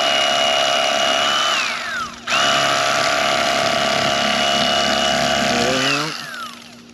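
Bubba Blade electric fillet knife running with a steady high whine as it cuts along a sheepshead. About a second and a half in it is released and winds down in pitch, then starts again almost at once. Near the end it is switched off and winds down again.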